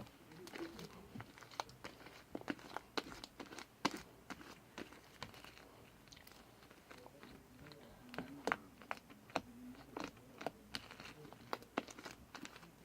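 Fluffy slime being squished and kneaded by hand, giving faint, irregular wet clicks and pops.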